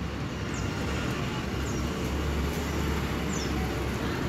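Steady low background rumble, like distant road traffic, with a few short, falling high chirps from a small bird.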